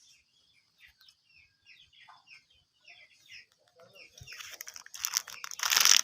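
Small birds chirping in many short, quick, falling notes. About four seconds in, a loud rustling, crackling noise takes over.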